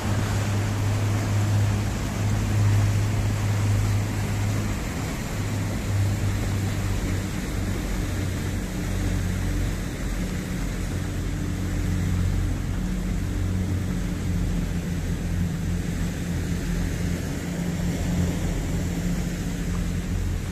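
RIB boat's engine running steadily at low speed, a constant low hum with an overtone, over a hiss of water and wind.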